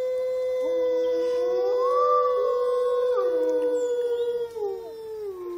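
Wolves howling together: one long, steady howl is held throughout. Other howls at different pitches join about half a second in and rise and fall around it. Near the end the long howl drops in pitch and fades.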